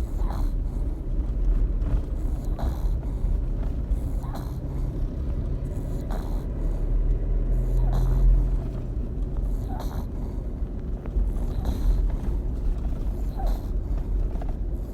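A sleeping furry pet snoring: a low, steady rumbling snore with a faint catch about every two seconds.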